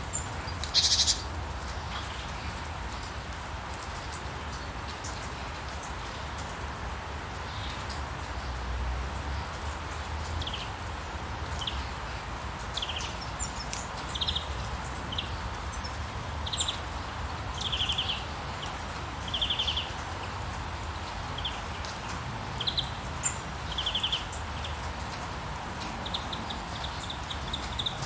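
Steady rainfall hiss with a low rumble beneath, while birds call over it: a short trill near the start, then a series of brief high chirps about once a second through the middle, and a trill building near the end.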